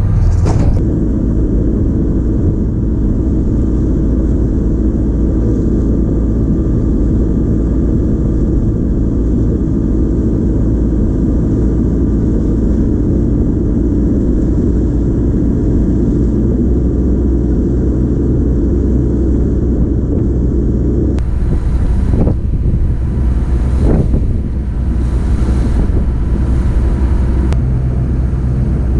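Cruise ship lifeboat's diesel engine running steadily under way: a loud, low, even drone with a faint steady whine above it. About three-quarters of the way through, a rushing hiss joins it.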